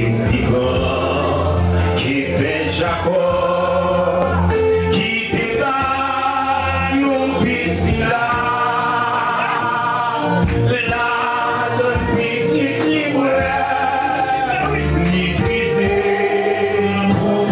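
Gospel worship music: voices singing together over a bass line and steady percussion.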